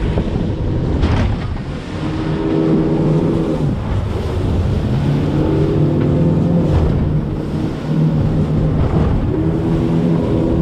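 Skiboat's outboard motors running through the surf, the engine note swelling and easing in about three surges, over wind and water rushing past the hull, with a couple of brief slaps of water.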